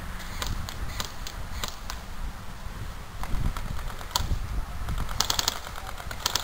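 Airsoft guns firing: scattered single shots, then a rapid full-auto burst about five seconds in, with another starting near the end.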